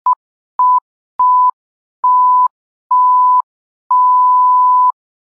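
A series of electronic beeps at one steady pitch, a title-card sound effect: six tones with silence between, growing longer from a short blip to about a second, each starting and stopping with a faint click.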